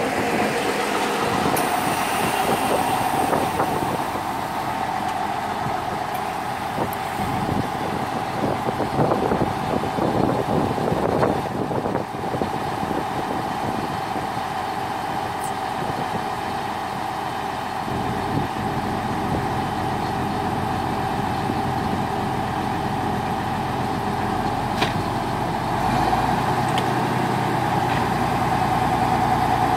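Slovenian Railways regional passenger train standing at the platform after arriving, idling with a steady mechanical hum and a constant mid-pitched tone. A faint high squeal near the start, some rattling in the middle, and the hum grows louder near the end.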